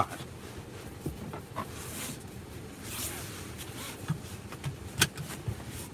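Faint rustling of clothing and seat as a person shifts around in a truck cab, with a few small clicks and one sharp click about five seconds in.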